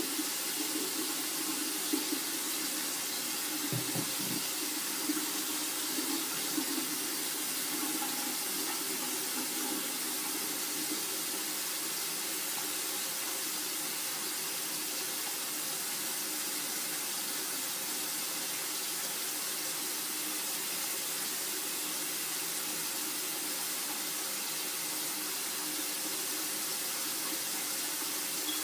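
Water running steadily from a tap into a sink, with some uneven splashing and a few light knocks in the first ten seconds or so as the hair is worked under the stream.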